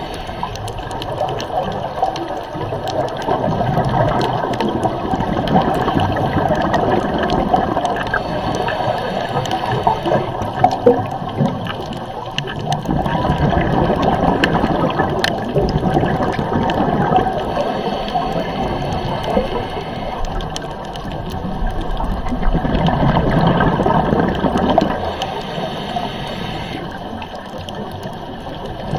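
Underwater sound: a steady watery rushing and bubbling that swells and fades every few seconds.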